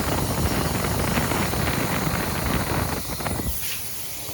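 Nitrogen pressure blowing flush solvent and dirt out of a contaminated air-conditioning line: an irregular, sputtering hiss that weakens about three and a half seconds in.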